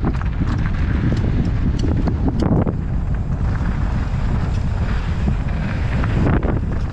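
Wind rushing over a helmet-mounted camera's microphone as a mountain bike runs fast down a loose dirt and gravel trail, with its tyres rolling over the dirt. Scattered sharp clicks come in the first few seconds.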